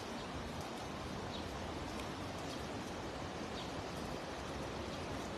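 Steady, fairly quiet rush of a shallow stream flowing, with no distinct events.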